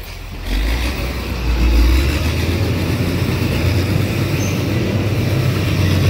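Motor vehicle engine running with a loud, steady low rumble and road noise, starting about half a second in.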